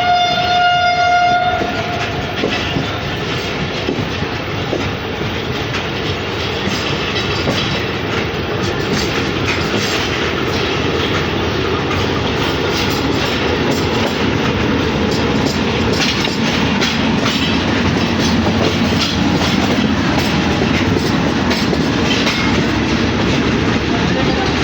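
Allama Iqbal Express passenger train running: a train horn sounds once for about a second and a half at the start, then a steady rumble of the coaches with wheels clicking over the rail joints.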